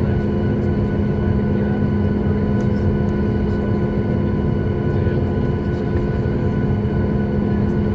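Steady cabin drone of a Boeing 737 MAX 8 standing with its CFM LEAP-1B engines at idle, heard inside the cabin. A low hum carries several steady whining tones above it, with no change in pitch or level: the engines have not yet spooled up for take-off.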